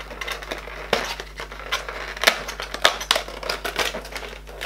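Fingers prying at the stiff little cardboard door of an advent calendar box: a run of rustling, scraping and sharp clicks, with a few louder snaps around the middle.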